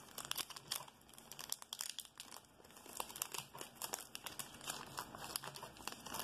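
Foil wrapper of a Yu-Gi-Oh Speed Duel booster pack crinkling and crackling in the fingers as it is torn open at the top.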